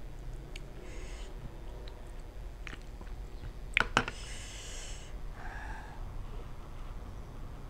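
A person chewing spicy lime-dressed shrimp, with soft mouth noises, and two sharp clicks close together about four seconds in, a metal spoon knocking against the serving dish.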